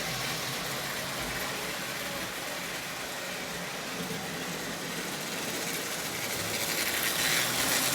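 Marx Commodore Vanderbilt toy tin locomotive, fitted with a rebuilt electric motor in place of its wind-up motor, running on toy train track: a steady whirring and rattle that grows a little louder near the end.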